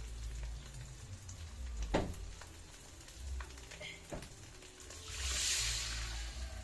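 Cooking at a pan: two short knocks, like a utensil against the pan, then a hiss lasting about a second and a half near the end, like frying.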